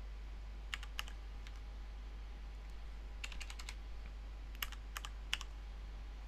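Computer keyboard being typed on: a few single key taps, then two short quick runs of keystrokes about three and five seconds in, over a steady low hum.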